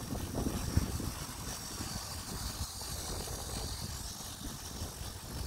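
Steady low rumble of tyres rolling over a paved path and wind on the microphone while riding, with small irregular knocks from bumps.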